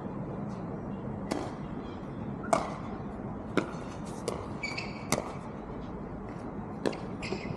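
Pickleball paddles striking a plastic pickleball in a warm-up rally: five sharp pocks, about one to two seconds apart.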